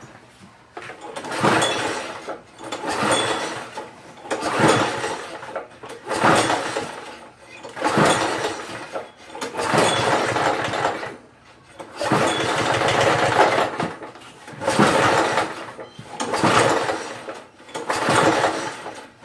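Small push-mower engine, converted to run on fuel vapor, being pull-started again and again: about a dozen cranking surges, roughly one every second and a half, with the engine trying but not catching. Twice the sound runs on for a second or more.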